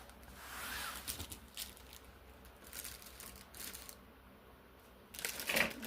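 Faint rustling and crinkling of packaging being handled, with scattered light clicks and a louder crinkle near the end.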